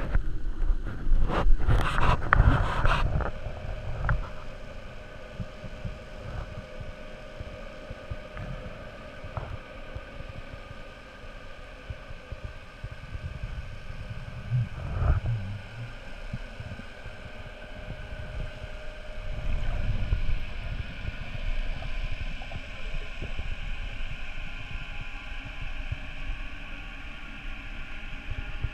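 Water splashing and sloshing at the surface for the first few seconds as the camera goes under, then a muffled underwater rumble heard through a waterproof camera housing, with a faint steady hum and an occasional dull thump.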